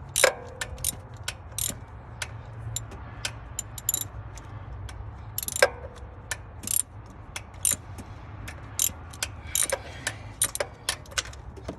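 Socket ratchet clicking in irregular runs, a few clicks a second, as it is swung back and forth to loosen a spark plug. Now and then a click leaves a short metallic ring.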